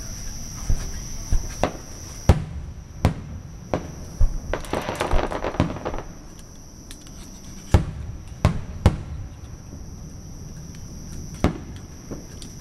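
Aerial fireworks shells bursting: about a dozen sharp bangs at irregular intervals, with a dense crackling stretch about five seconds in. A steady high insect drone runs underneath.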